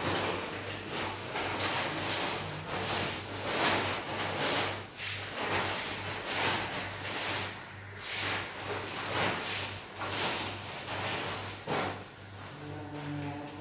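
Plastic bag rustling and packaging being handled in irregular surges about once a second, as a portable gas stove and its regulator are unpacked; a low steady hum runs underneath.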